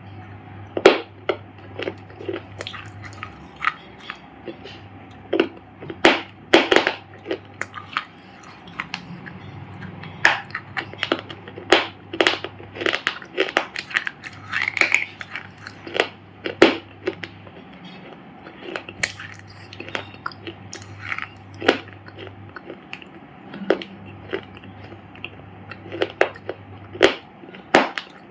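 Dry clay shapes crunching and crumbling in a long run of irregular, sharp cracks.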